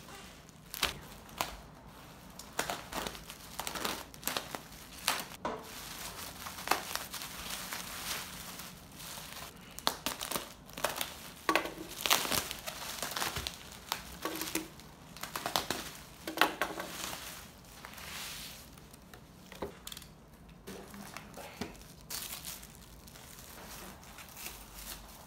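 Bubble wrap and plastic film crinkling and crackling as they are pulled off a box and off wooden picture frames by hand, in irregular runs of sharp crackles, loudest in the middle.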